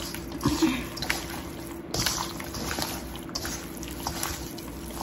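Hands squishing and turning raw chicken pieces in dry spice powder in a stainless steel bowl, with irregular wet squelches and soft slaps.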